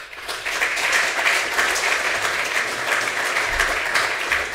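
Audience applauding, many hands clapping at once. It starts suddenly and holds steady.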